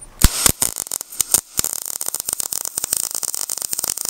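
MIG welding arc striking on 16-gauge square tubing: a few separate sputtering pops about a quarter second in, then from about a second and a half a steady, fast crackle with hiss as the bead is run.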